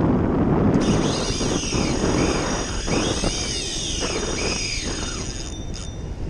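Wind buffeting the microphone, with a fishing reel whining high above it from about a second in until near the end, its pitch rising and falling, while a hooked fish is played from the shore.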